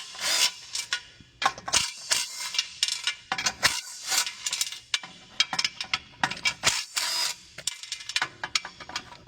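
Hand ratchet and socket clicking in short runs, with scattered metal clicks, while the bolts holding a three-piece wheel's halves together are backed out.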